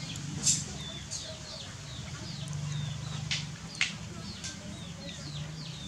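Many short, falling bird chirps repeating every half second or so, with a few sharp clicks over a low background hum.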